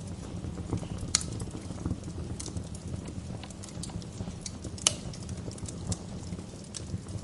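Wood fire burning in a fireplace, crackling over a steady low rumble, with scattered sharp pops; the loudest pops come about a second in and about five seconds in.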